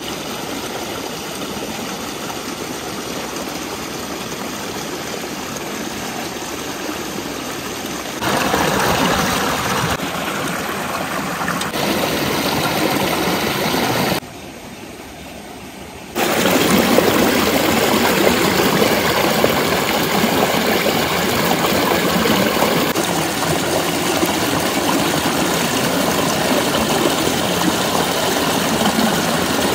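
Shallow creek rushing over rocks: a steady noise of flowing water, dropping quieter for about two seconds near the middle and then louder for the rest.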